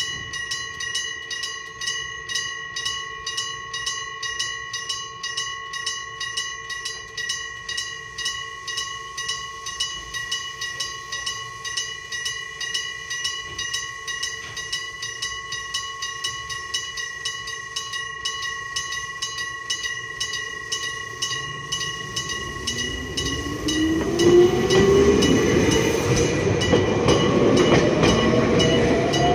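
Electric-bell level-crossing alarm ringing, a bell struck in a fast, even rhythm. From about 21 s an electric train's motor whine rises steadily in pitch as the train accelerates, growing louder about 24 s in.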